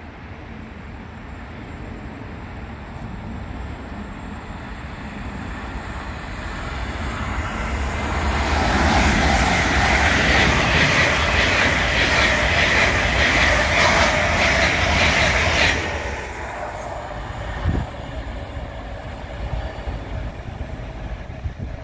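GWR Class 802 intercity train passing at speed. The rush of wheels on rail builds over several seconds and is loudest for about seven seconds, with a rapid clatter running through it. It cuts off suddenly as the last coach goes by, and a single thump follows about two seconds later.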